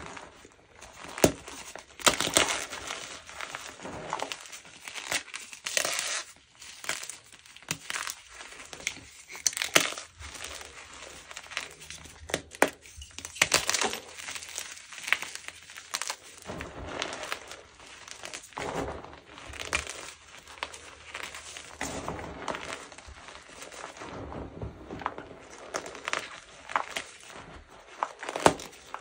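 Gym chalk mixed with cornstarch being crushed and crumbled: a continuous run of irregular crunches and crackles, some sharper and louder than others.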